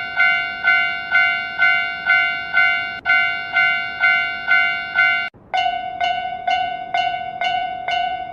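Japanese railroad crossing warning bell clanging steadily, about two strikes a second. About five seconds in it breaks off briefly and resumes with a slightly wavering tone.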